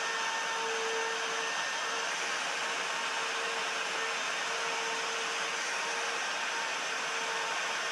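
Handheld electric power tool running steadily: a constant motor whir with a faint tone that wavers in and out.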